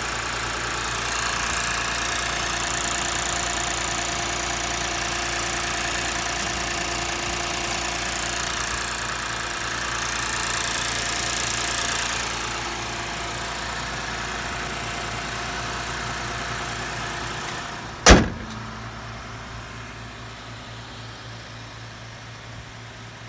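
Toyota Mark X 250G's 2.5-litre V6 idling from a cold start, heard close up in the open engine bay. About 18 seconds in, one sharp loud slam, the bonnet being shut, after which the idle sounds quieter and duller.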